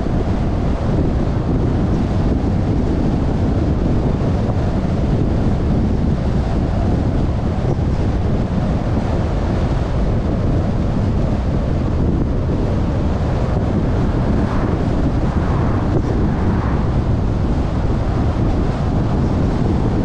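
Steady rumbling wind and road noise from a car driving at speed, wind buffeting the microphone.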